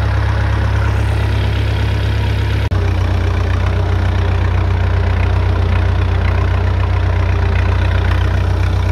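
Tractor engine running steadily while pulling a row hipper, with a brief dip just under three seconds in.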